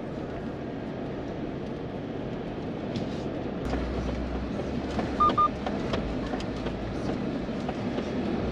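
Steady road and tyre rumble heard from inside a moving vehicle, with scattered light clicks. Two short high beeps sound a little past the middle.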